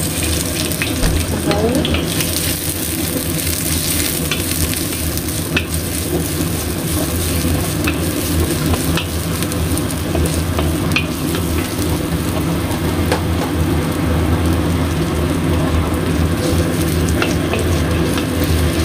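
Chopped chillies and garlic sizzling in hot oil in a wok as they are stir-fried, with a wooden spatula stirring and scattered faint taps against the wok.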